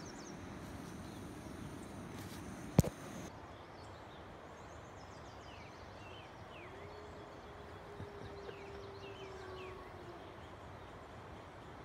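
A gray wolf howling in the distance: one long, steady howl lasting about three seconds that rises at the start and sags at the end. A sharp click sounds about three seconds in.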